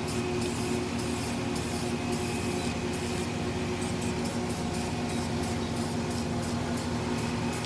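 Aerosol can of Rust-Oleum camouflage spray paint hissing in many short bursts as green paint is sprayed onto a rifle, over a steady background hum.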